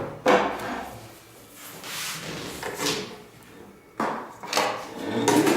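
Handling knocks and scrapes: about half a dozen sharp knocks, a second or so apart, with rubbing in between, as the parts of a Domino joiner stop jig are picked up, fitted and set down.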